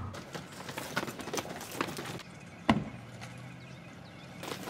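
Car door and wheeled suitcase being handled as a passenger gets out: a run of clicks and knocks, then one sharp thump, the car door shutting, about two and a half seconds in. A car engine idles low underneath.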